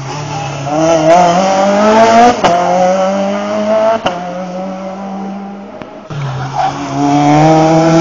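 Rally car engine revving hard as it accelerates away, its pitch climbing, with sharp exhaust cracks about two and a half seconds in and again around four and six seconds, typical of anti-lag. From about six seconds in a second rally car's engine comes in loud, its note rising.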